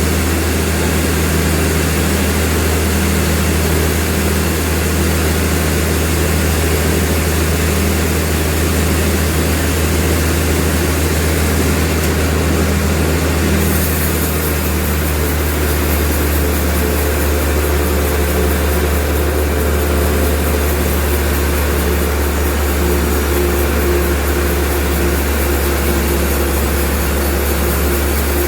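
Sawmill machinery running with a loud, steady low drone and a steady hum. About halfway through, a faint high hiss joins it.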